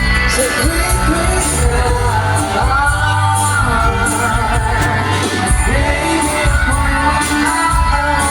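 Pop song with a lead singer over drums and bass guitar, playing steadily.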